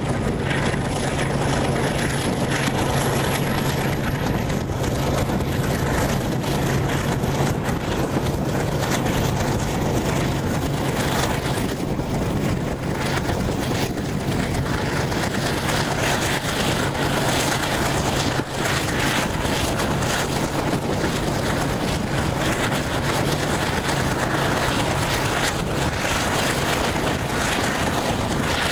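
Passenger train running at speed, heard from an open carriage window: a steady rush of wind and wheel noise over the rails with a low steady hum underneath.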